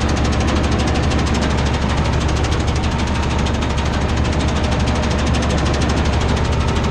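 Tractor diesel engine running steadily at a constant working speed, heard from inside the cab, with a fast, even pulse and a clattering note.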